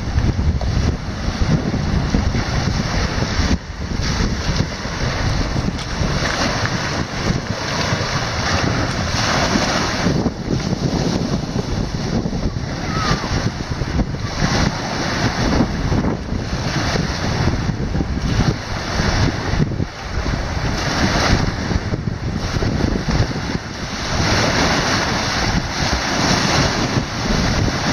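Storm wind gusting hard across the microphone, rising and falling, over choppy lake waves breaking against the shore and the wooden pilings of a pier.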